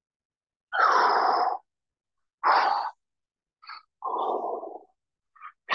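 A man's hard breathing under exertion: three loud, forceful exhales about a second and a half apart, with fainter breaths between.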